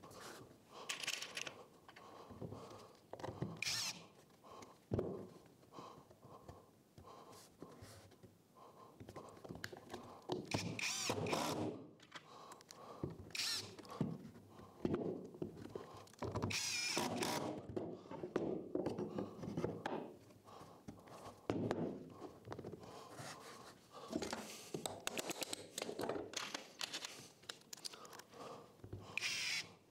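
A cordless drill-driver running screws through an MDF board into the wooden jig and cap blank in several short spurts, between knocks and scrapes of wooden pieces and tools being handled on the workbench.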